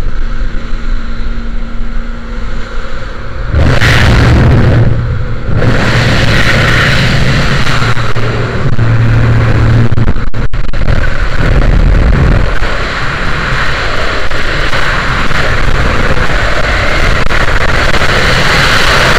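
Small plane's engine and propeller droning through the open jump door, then from about four seconds in a loud rush of slipstream wind buffeting the microphone as the skydiver climbs out and exits, settling into a steady rush of freefall wind.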